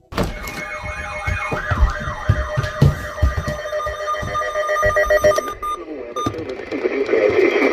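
Rapid warbling siren-like alert tone, wavering about three times a second over steady tones and low thumps; it cuts off after about five and a half seconds, and a voice begins reading a warning near the end.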